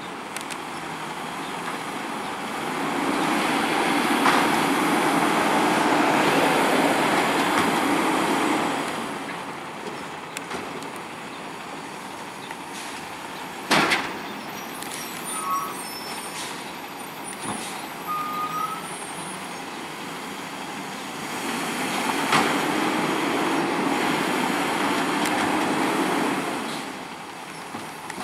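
Automated side-loader garbage truck working carts: its engine speeds up twice, for about six seconds each time, to drive the hydraulic lift arm, and then settles back. A single sharp bang comes halfway between the two.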